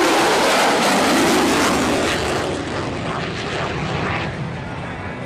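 Airplane engine noise as an aircraft flies past, loudest in the first two seconds and then fading away.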